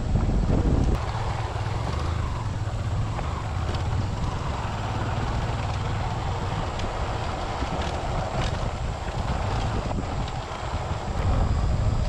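Motorcycle engine running while being ridden, with wind buffeting the camera's microphone. The wind rumble is heaviest for the first second or so, then settles to a steady level.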